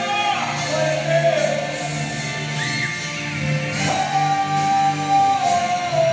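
Christian worship music: a singer holding long notes that bend up and down, without words, over steady instrumental backing.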